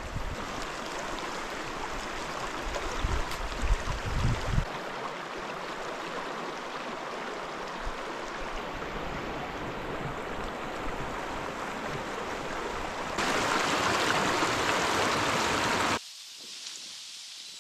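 Steady rushing noise with low thumps in the first few seconds. It grows louder for about three seconds near the end, then drops suddenly to a quieter hiss.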